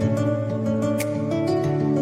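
Background music: a song's instrumental passage with sustained pitched notes, plucked strings and a steady beat.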